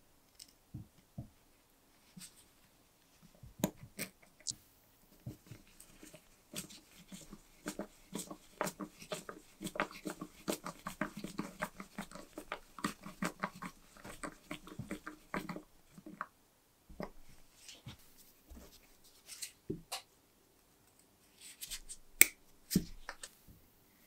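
Light metal clicks and taps from handling a small brass lighter, with a dense run of small ticks in the middle as a precision screwdriver turns the screw that holds the flint wheel. A sharper click comes near the end.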